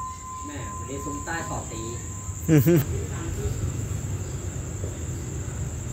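Crickets chirring in a steady high-pitched trill over a low background rumble, with short snatches of voices and one brief louder voice about two and a half seconds in.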